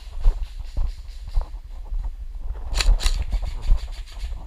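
Low rumble and scattered knocks of movement on a body-worn microphone, with a short burst of sharp airsoft gun shots about three seconds in.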